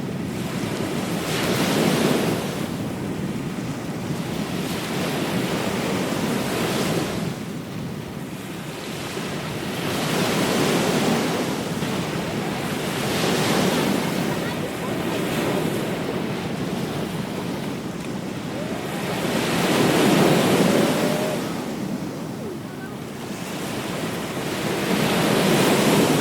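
Ocean surf breaking on a beach, each wave swelling and falling away every few seconds, with the biggest surges about two seconds in, around twenty seconds in and at the very end.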